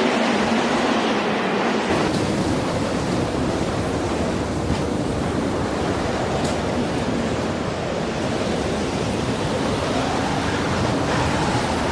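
Steady rushing wind noise, which fills out deeper about two seconds in and then holds even.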